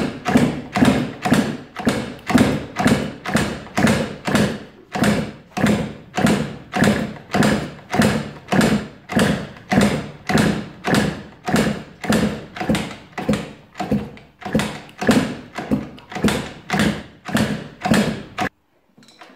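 Rebuilt Derbi Senda 50cc two-stroke engine being kick-started over and over on a bench, about two kicks a second, more than thirty in a row, without settling into a steady run. The kicking stops suddenly near the end.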